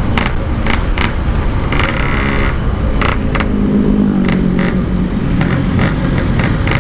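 Yamaha RX-King 135 cc two-stroke motorcycle engine running under way through its aftermarket standard-style exhaust, its note climbing and settling about four to five seconds in. Several short bursts of noise cut across it.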